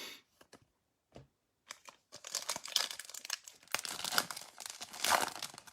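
A few light clicks, then from about two seconds in, the crinkling and tearing of a plastic Optic basketball trading-card pack wrapper being torn open.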